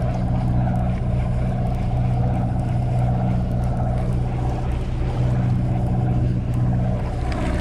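A sportfishing boat's engine running with a steady low drone heard on deck.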